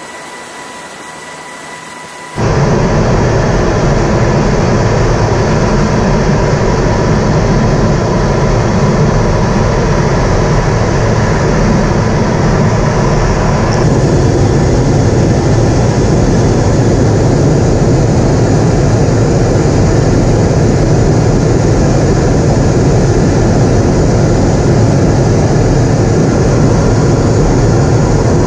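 Steady noise of jet aircraft in flight, engines and airflow. It is faint for about the first two seconds, then comes in suddenly loud and holds even, changing colour slightly about halfway through.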